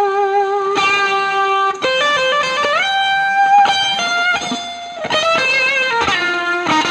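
Electric guitar played through the Spruce Effects Volcanoes silicon/germanium hybrid fuzz pedal into a Milkman The Amp 100 tube amp, a buzzy fuzz tone. It plays a single-note lead line: a held note with vibrato, a quick run of notes, a slide up about three seconds in, then more notes with vibrato.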